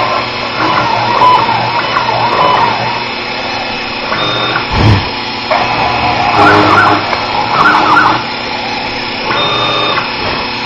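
Sherline 2000 CNC mill cutting with a 1/8-inch straight-flute end mill, its axis stepper motors whining in tones that change every second or so as the moves change. A short low thump comes about five seconds in.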